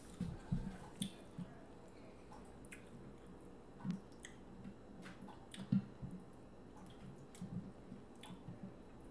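A lemon squeezed by hand over a glass bowl of seafood boil sauce, with fingers working in the sauce: scattered small wet squishes, drips and clicks, a few of them louder, one a little past the middle.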